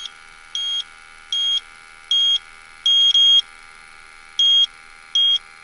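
Electronic refrigerant leak detector beeping during a leak search: about eight short, high beeps at an uneven pace, two coming close together about three seconds in, over a steady hum.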